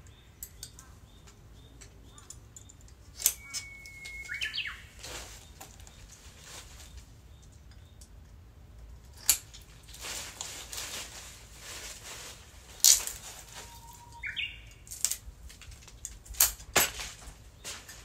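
Japanese bush warbler (uguisu) singing its "hoo-hokekyo" song twice, each a held whistle followed by a quick tumbling flourish. Between the songs come sharp clicks and snaps, the loudest sounds, and a stretch of rustling as a woody branch is cut and trimmed by hand.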